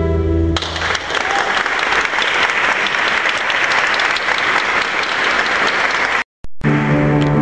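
Audience applauding, a dense clatter of many hands. A held chord from the instrumental ensemble breaks off about half a second in. After a brief dropout near the end, sustained music starts again.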